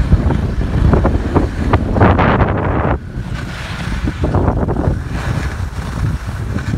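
Wind buffeting the microphone of a phone carried by a downhill skier, over the hiss of skis scraping across packed snow. The scraping comes in surges, the loudest about two seconds in.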